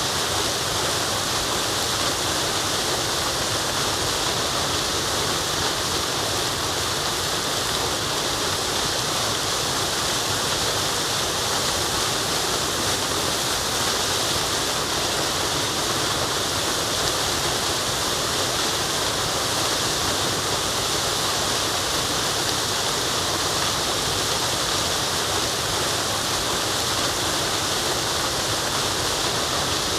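Waterfall: a steady, unbroken rush of falling water, hissy and even throughout.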